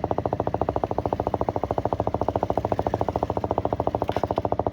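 Motorcycle engine running at a steady speed, its exhaust pulses coming fast and even.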